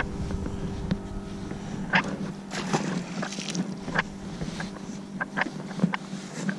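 Low steady hum of an electric trolling motor holding the boat on a slow drift, with scattered light splashes and small knocks against the hull.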